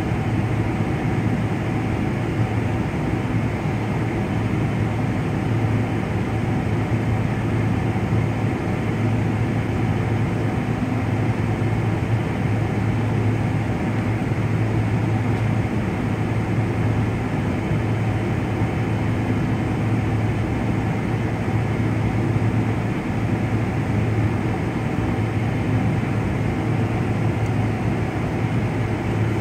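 Steady cabin noise of a jet airliner with its turbofan engines idling on the ground, heard from inside the cabin: an even rush over a low hum that does not change.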